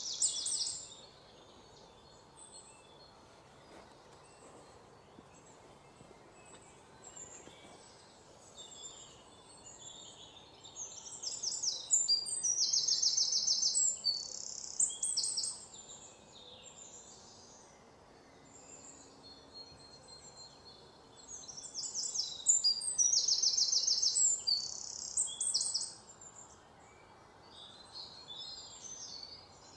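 Songbird singing in bouts of rapid, high-pitched chirping trills a few seconds long, with quieter scattered chirps between the bouts.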